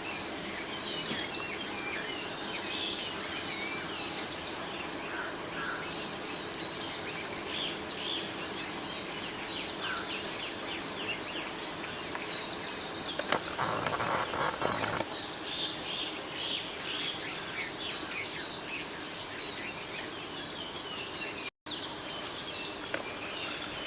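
Steady high-pitched chorus of insects with scattered short bird chirps over it. About 13 seconds in there is a louder noisy stretch lasting a couple of seconds, and the sound cuts out for a split second near the end.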